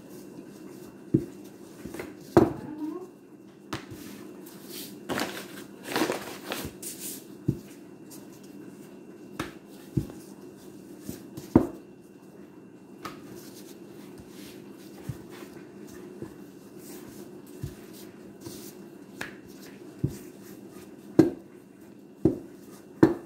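Bread dough being rolled out and worked with a wooden rolling pin on a countertop: scattered sharp knocks and taps, a few louder ones near the end, with a stretch of rustling about five to seven seconds in, over a steady low hum.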